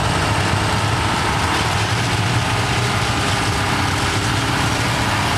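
Cummins diesel engine swapped into a 1985 Chevy pickup, running steadily at low revs as the truck rolls slowly.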